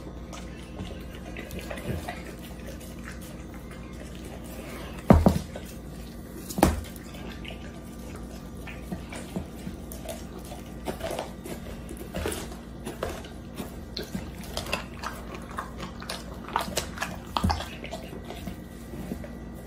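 Dog chewing and licking a whole raw chicken: wet smacking and clicking mouth sounds, with two louder knocks about five and six and a half seconds in.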